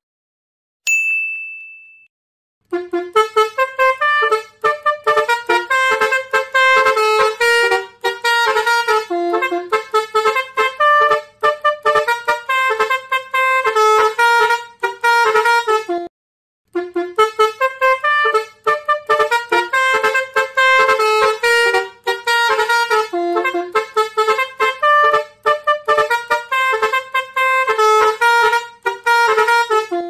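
Basuri horn, an Indonesian multi-trumpet musical vehicle horn, honking a fast melody of short notes; the tune breaks off briefly about halfway and starts again. Before it, about a second in, a single ding rings and fades.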